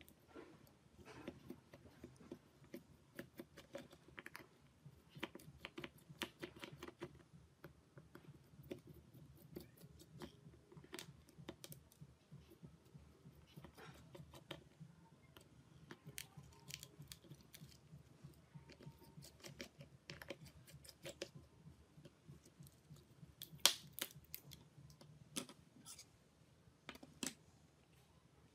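Scattered small clicks and taps of tools and hands working on an old OPPO A33W phone, with one sharper click about 23 seconds in.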